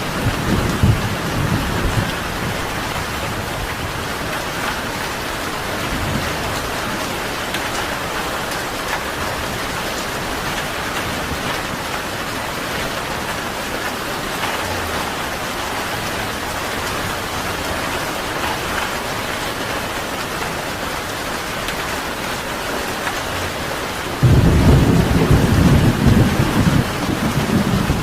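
Steady heavy rain with a low rumble of thunder in the first couple of seconds. A louder rumble starts abruptly about three-quarters of the way through and carries on to the end.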